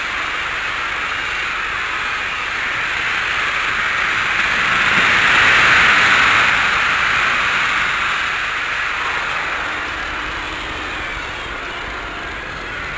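Large stadium crowd cheering, a high-pitched mass of voices that swells to a peak about halfway through and then eases off.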